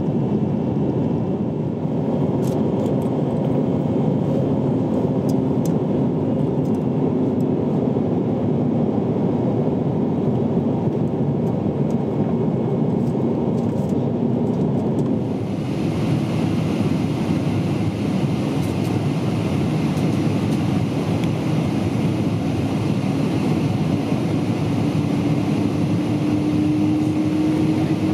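Jet airliner cabin noise heard beside the wing: steady engine and airflow noise with faint hums, first aboard an Airbus A320-family jet. About halfway through the sound changes abruptly to another airliner's cabin with more hiss, and near the end a hum rises slowly in pitch.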